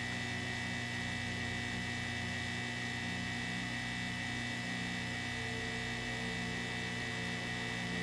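Hot-air heat gun running with a steady hum, blowing on a laptop DC power jack to melt its solder for removal.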